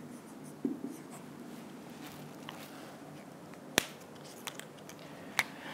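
Quiet room tone broken by a few short, sharp clicks from a whiteboard marker being handled in the hands, the loudest about four seconds in and another near the end.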